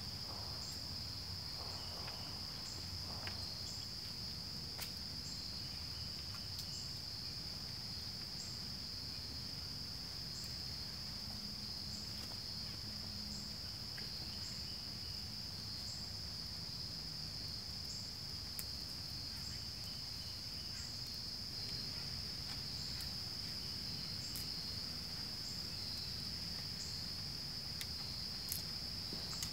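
Steady, high-pitched insect chorus of crickets, with a few faint sharp pops scattered through it.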